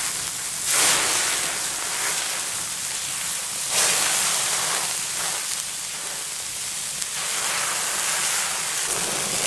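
Fish and seafood sizzling on a hot steel fire plate, a steady sizzle that swells sharply twice, about a second in and again near four seconds.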